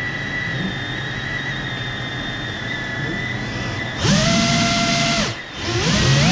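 GEPRC Cinelog 35 cinewhoop FPV quadcopter's motors whining in flight: a steady high whine, then a sharp throttle-up about four seconds in, louder for about a second, dipping and climbing again near the end as the pitch bends with throttle.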